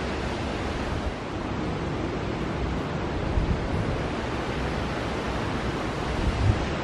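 Steady rushing of river water, with wind buffeting the microphone.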